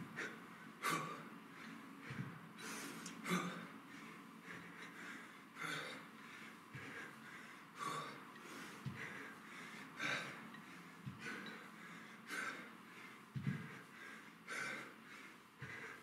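A man breathing hard while doing kettlebell dead high pulls: one sharp, hissing breath about every second, in time with the reps.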